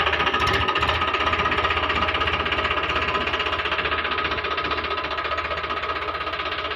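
Mini loader tractor's engine running steadily with a fast, even chugging pulse.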